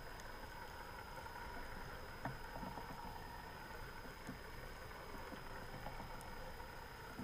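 Underwater ambience picked up by a camera over a seagrass bed: a steady hiss with a faint constant high whine and a few scattered clicks, the loudest a sharp knock a little over two seconds in.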